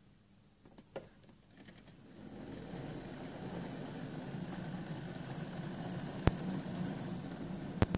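Hornby OO gauge Class Q1 0-6-0 model locomotive running on its track: a steady whine and rumble from its electric motor and wheels that grows louder about two seconds in as it comes close, with a few sharp clicks.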